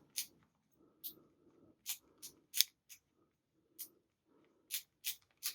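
Dial wheel of a Uläc Soloist combination bike lock being turned a number at a time, about ten sharp separate clicks from its detents at an uneven pace.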